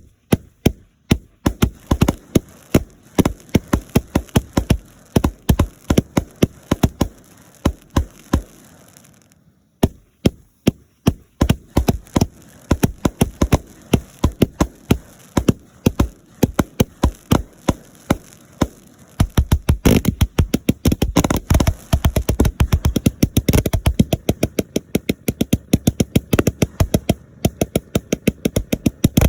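Fireworks going off in rapid succession, several sharp bangs and cracks a second. After a short break about ten seconds in they resume, and from about two-thirds through they become a dense, almost continuous barrage.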